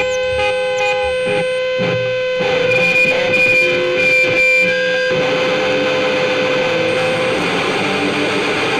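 Distorted electric guitar feedback from a powerviolence record, several held tones ringing together. About five seconds in it thickens into a noisier distorted wash.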